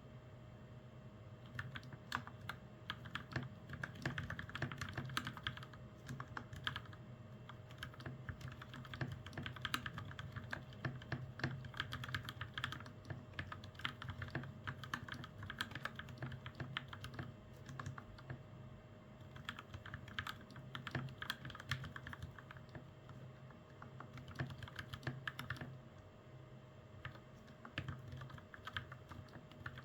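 Steady typing on a custom mechanical keyboard with lubed Gateron Milky Yellow Pro linear switches and double-shot PBT keycaps: a fast run of key clacks that thins out briefly a couple of times, over a faint steady hum.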